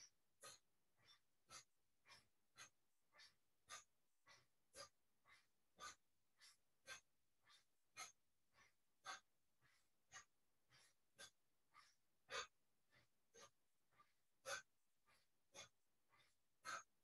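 A person's short, sharp breaths in a quick rhythm, about two a second, faint and varying in strength, paced to a brisk qigong arm-swinging exercise.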